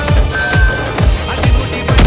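Electronic background music with a heavy bass beat, about two deep pulses a second.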